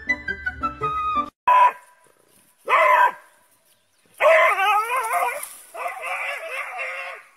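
Light background music for about the first second, then a puppy's high-pitched yelps: two short cries, followed by two long, wavering howling cries, as a frightened puppy runs from a lizard.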